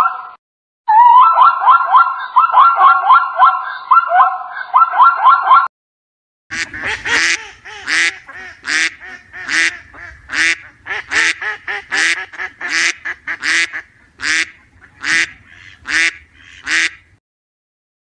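A zebra calling with a rapid, repeated, pulsing bray that stops about six seconds in. After a short pause, white domestic ducks quack in a long run of short, separate quacks, roughly two a second.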